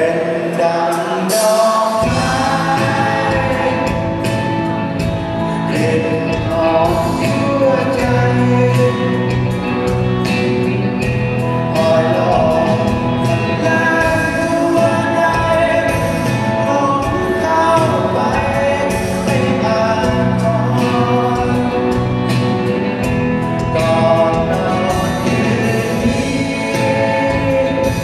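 Live rock band playing a song with a lead vocal over electric guitars and a drum kit, amplified through the stage PA. The bass comes in about two seconds in.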